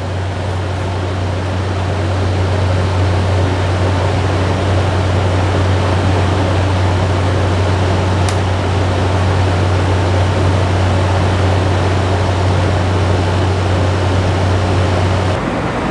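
Tosot Tranquility window air conditioner running in cooling mode with the fan on high: a steady rush of air over a constant low hum. The unit is unmounted, so it is at its loudest.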